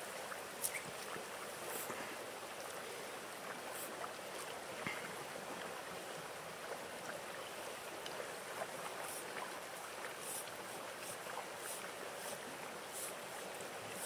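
Steady rush of flowing river water, with a few faint high ticks scattered through it.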